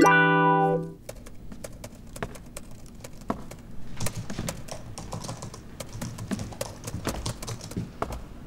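A short musical sting ending about a second in, then quick, irregular keystrokes of typing on a computer keyboard.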